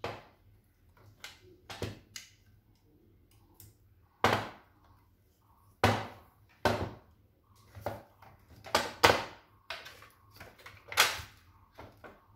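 Irregular knocks and clicks of a desktop hard drive being handled on a tabletop while SATA data and power cable plugs are pushed into it, about a dozen sharp clunks with the loudest near the middle and end.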